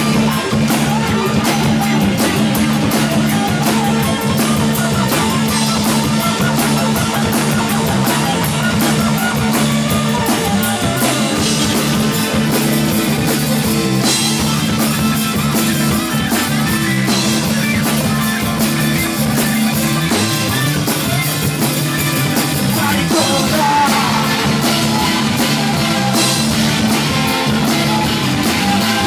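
Progressive rock band playing live, with drums, guitar and keyboards in a loud, steady passage. The audience recording is clipping and distorted.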